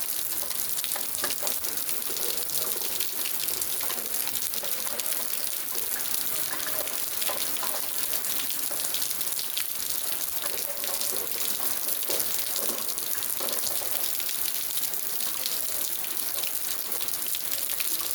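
Steady rain falling: an even hiss of water with many small drop impacts throughout.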